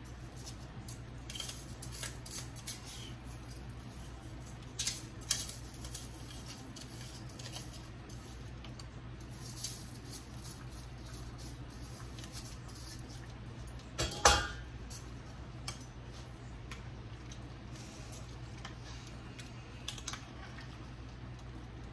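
Metal spoon scraping and clinking against a mesh colander and a stainless steel pot as rice is spooned into a chicken stew and stirred: scattered clinks, the loudest about fourteen seconds in, over a steady low hum.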